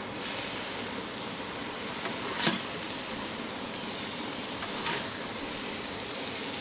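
A metal utensil scraping and clicking against a steel griddle pan and a plate as food is served, with two short sharp clicks about two and a half and five seconds in, over a steady rushing noise.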